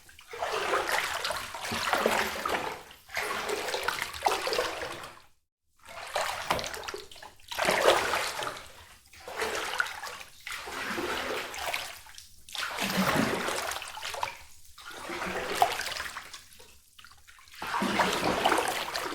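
Water sound effects played one after another: a string of short bursts of splashing and running water, each a second or two long, with brief breaks between them.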